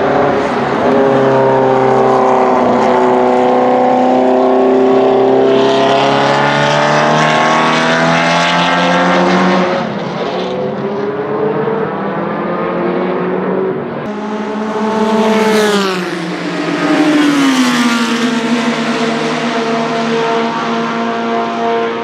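Ford Cosworth DFL V8 of a Tiga GC289 Group C2 race car at speed. The engine note climbs under acceleration for most of the first ten seconds and breaks off there; about fifteen seconds in the pitch sweeps sharply down as the car lifts and slows, then it holds a steady drone to the end.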